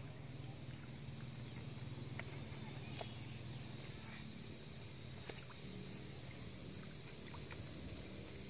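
Scissors snipping at fine netting, a few small sharp clicks, over a steady high-pitched insect drone and a low hum.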